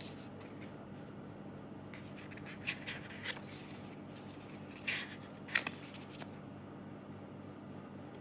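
Paper and card of an album's contents being handled: short rustles and scrapes, a few about two to three seconds in and the loudest two about five seconds in, over a faint steady hum.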